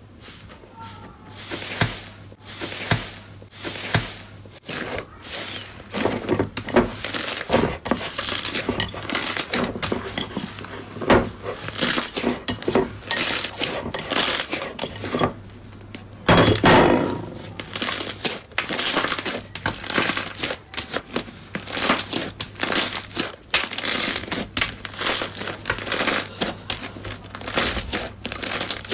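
Slime being squeezed, poked and stretched by hand, making dense irregular crackling and popping, with a louder stretch about halfway through.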